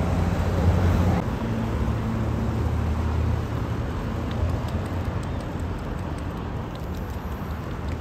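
Steady city road traffic: a low engine hum with tyre noise, loudest in about the first second as a car runs close by, then settling a little quieter.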